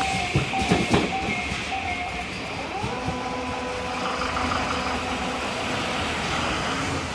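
Tobu commuter train passing over a level crossing, its wheels knocking over the rail joints, with the crossing's electronic warning bell ringing at about two beats a second. The bell and the wheel knocks stop about two seconds in. A steady whine then rises and holds.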